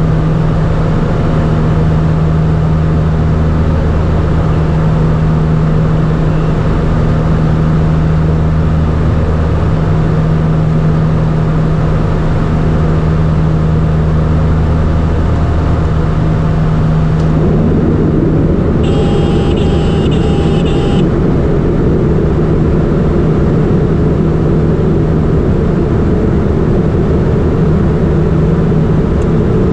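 Garrett TPE331-10 turboprop engines of a Turbo Commander 690B droning steadily in flight. About two-thirds of the way through, the tone of the drone shifts, its low hum giving way to a higher, rougher sound.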